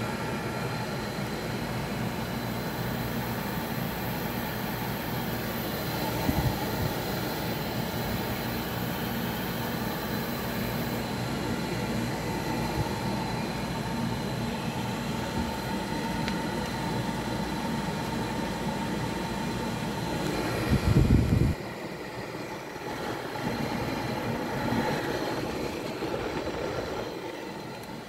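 GE window air conditioner running with a steady hum. A brief loud low thump comes about three-quarters of the way through, after which the low part of the hum is weaker.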